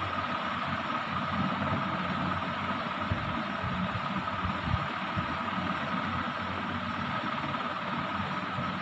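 Steady mechanical hum and hiss with a thin high whine, unchanging.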